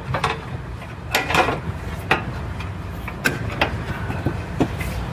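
Loose sheet-metal dogleg panel being handled and fitted against a car's quarter panel: scattered taps, clicks and short scrapes of metal on metal over a steady low rumble.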